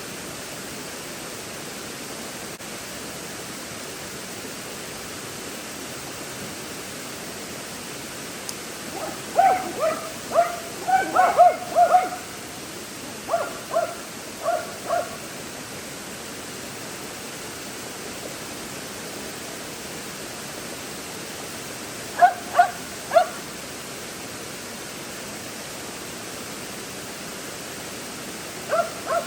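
Dog barking in short bursts over the steady rush of a waterfall. There is a run of about a dozen barks around ten seconds in, three quick barks a little after twenty seconds, and two more at the very end.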